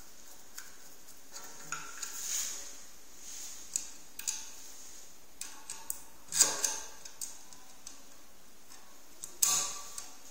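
Hand screwdriver turning screws into a sheet-metal hard disk bracket: scattered small metallic clicks and scrapes, with two louder clatters about six and a half and nine and a half seconds in.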